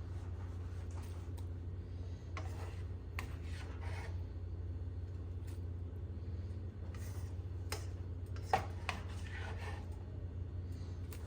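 A utensil scraping sautéed vegetables out of a pan into a soup pot, with a few clicks and one sharper knock of metal on cookware near the end, over a steady low hum.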